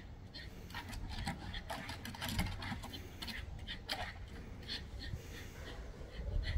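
Dogs barking and yapping at each other through a wooden fence in quick, irregular short barks.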